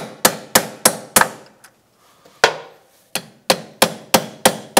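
Hammer tapping a steel punch against the staked collar of a Honda Goldwing's 32 mm clutch nut, metal on metal, to unstake it before the nut is loosened. Five quick ringing strikes, a pause of about a second, then a steadier run of about three strikes a second.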